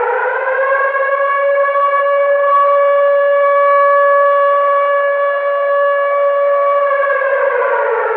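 Civil defense siren wailing: it finishes winding up in the first second, holds one steady pitch, then starts to wind down about a second before the end.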